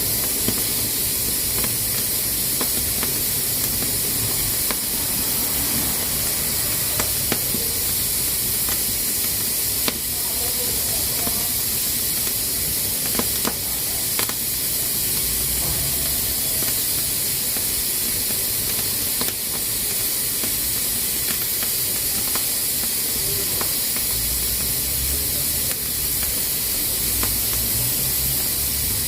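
Pressure cooker hissing steadily as steam escapes from its valve under pressure, with scattered faint ticks.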